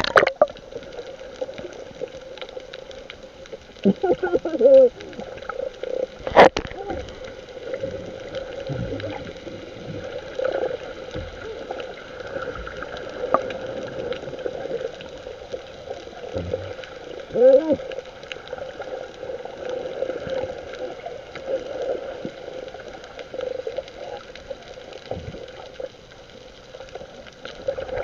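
Water gurgling and sloshing around a fishing boat over a steady hum, with a couple of short calls and a sharp click.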